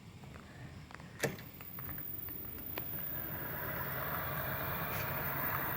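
A sharp click, then a Xiaomi 1S electric scooter's front wheel running on its new solid tire: a steady hum of hub motor and tire that builds up over a couple of seconds and holds.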